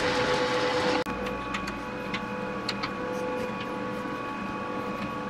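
Metal lathe running with a drill fed from the tailstock for about the first second, then cut off abruptly. A quieter steady hum follows, with scattered light metallic clicks as a threaded rod is spun by hand into a tapped steel cap.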